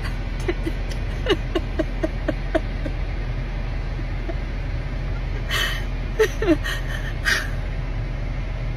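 A woman sobbing in a car: a quick run of short, high whimpering sobs about a second in, then gasping, breathy intakes through the tears in the middle, over a steady low cabin hum.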